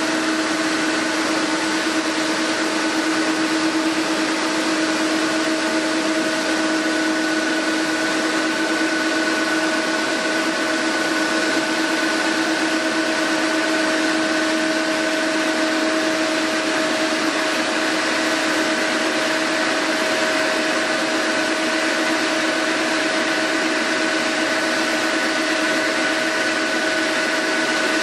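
Jet airliner engines running steadily: a constant loud hiss with a whine of a few fixed tones that neither rise nor fall.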